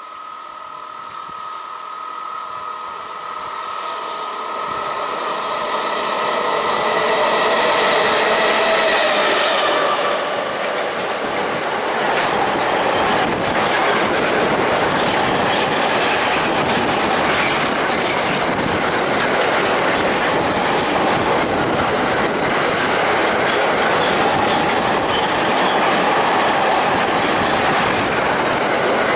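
A freight train approaches and passes close by. The locomotive's whine of several steady tones grows louder and drops slightly in pitch as it passes, about ten seconds in. Then a long rake of empty double-deck car-carrier wagons rolls by with a steady rumble and rapid clatter of wheels on the rails.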